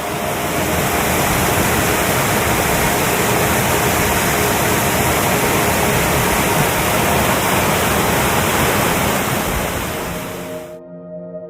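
Waterfall's steady rush of falling water, a loud, even hiss. It stops abruptly about eleven seconds in, as soft ambient music returns.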